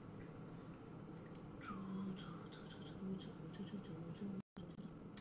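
Faint small clicks and light handling noises from liquid matte lipstick being applied with a wand applicator, over a low steady room hum. The sound cuts out for a split second near the end.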